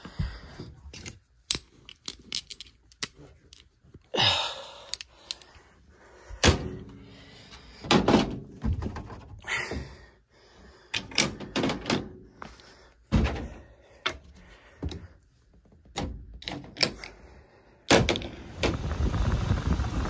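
Irregular sharp knocks, clicks and thunks with rustling between them, from hands working at an air handler's sheet-metal cabinet and drain pan. A steady rushing noise comes in near the end.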